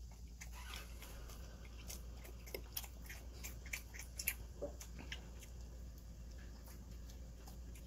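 Close-miked chewing of a carrot-filled triangle gimbap: quick, crisp crunching clicks from the raw carrot and seaweed, thickest in the first five seconds and thinning out after.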